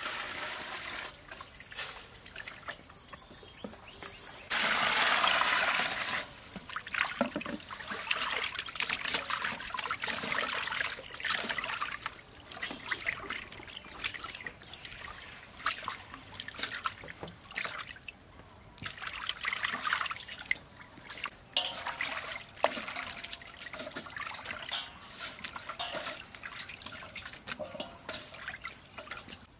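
Water sloshing and splashing in a stainless-steel basin as hands rub and rinse raw chicken gizzards, with drips and trickles throughout. About five seconds in, a burst of water pours in for a second or two.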